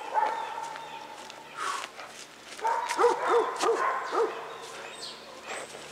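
A dog barking, with a quick run of about four barks about three seconds in.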